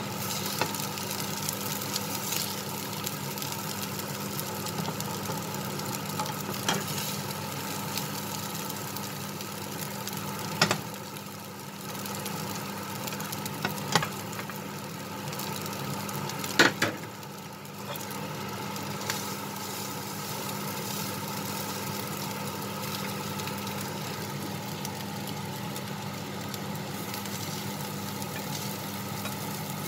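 Wooden spatulas stirring and scraping dry-fried minced pork around a non-stick frying pan, with a light sizzle, over a steady low hum. A few sharp knocks of the spatula against the pan come at about 11, 14 and 17 seconds in.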